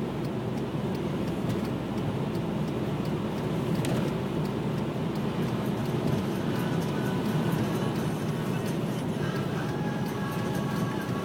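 Steady road and engine noise of a car driving along a highway, heard as an even rumble with no let-up.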